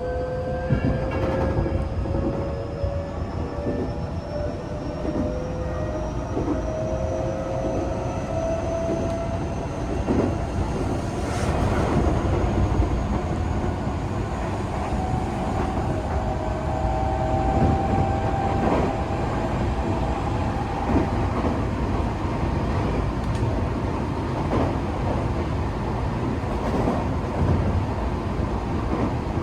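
Tokyo Metro 8000-series electric train running, heard from inside the car. A steady rumble runs under the motor whine, which rises in pitch over the first ten seconds as the train gathers speed and then holds steadier. Short clicks from the wheels passing rail joints come at irregular intervals.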